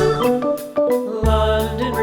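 Upbeat background music with pitched melody notes over a steady bass, the bass dropping out briefly about a second in before coming back.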